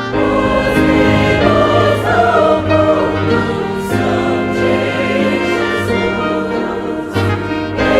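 Mixed choir singing a hymn in full sustained chords, with a brass ensemble accompanying.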